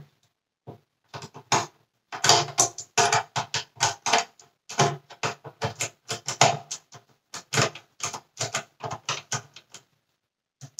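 Screwdriver clicking and scraping against the plastic of a Dyson cyclone unit's cone stack while working at a screw in the middle: quick, irregular clicks and rattles, mostly from about two seconds in until shortly before the end.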